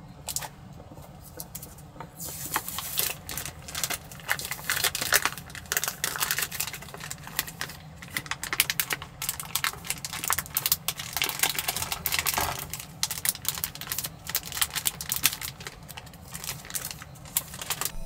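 Knife chopping ingredients on a cutting board: quick, irregular runs of taps that start about two seconds in, with short pauses, over a steady low background rumble.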